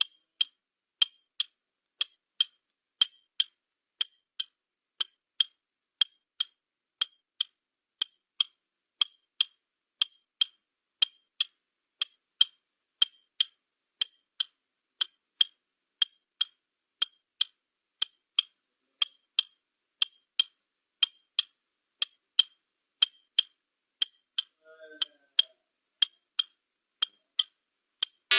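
Countdown-timer sound effect of a clock ticking steadily at an even pace, timing a 30-second answering period.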